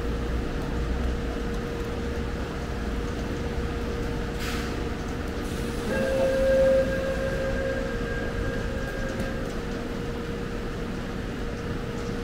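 Subway train running through the station with a steady low rumble and a constant hum. There is a short hiss about four and a half seconds in. From about six seconds a steady high tone sounds, loudest for the first second, then fades over the next three seconds.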